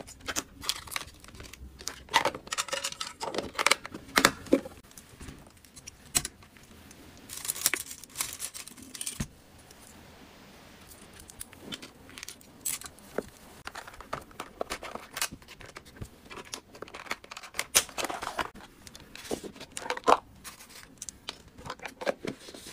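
Crinkling of plastic wrappers and packaging, with sharp clicks and taps of small plastic items being picked up and set down. There is a quieter lull partway through.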